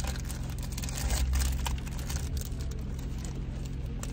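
Plastic snack wrapper crinkling and rustling as it is pulled open by hand, over a steady low hum inside a car and light rain patter on the windows.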